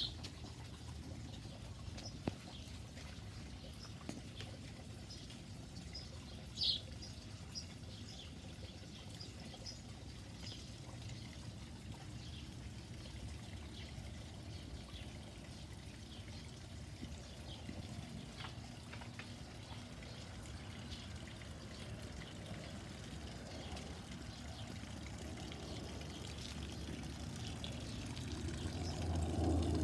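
Water trickling and splashing from a small rock waterfall into a garden pond, growing louder near the end. Birds chirp faintly now and then.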